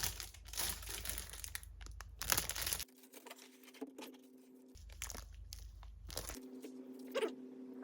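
Parcel packaging being torn and crinkled open by hand, rustling in irregular bursts with a few sharp crackles, quieter for stretches in between.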